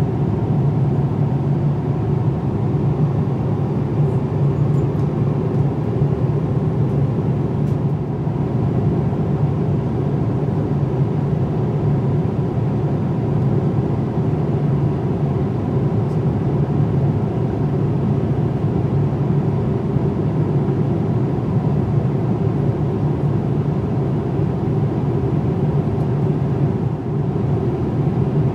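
Airliner cabin noise inside a Boeing 787-9: the steady, low-pitched noise of the engines and airflow, without change.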